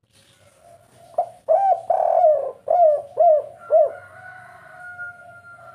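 Spotted dove (tekukur) cooing: a quick run of coos with a longer middle note, ending in three short, evenly spaced 'kuk' notes, the 'kuk 3' song type. A fainter, steady drawn-out note follows near the end.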